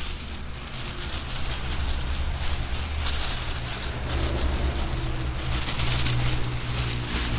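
Woven plastic sack and a plastic bag rustling and crinkling as they are handled, over the steady low hum of an engine running.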